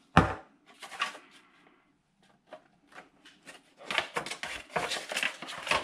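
Handling of 3D-printed plastic wing parts on a workbench: a sharp knock right at the start, a few scattered taps, then from about four seconds a busy run of clicks and rubbing as the glued wing sections are fitted and pressed together.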